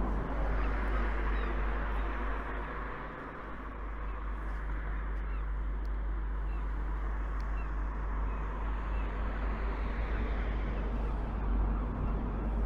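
Outdoor street ambience: a steady background of traffic with a low rumble, and a few faint high chirps scattered through it.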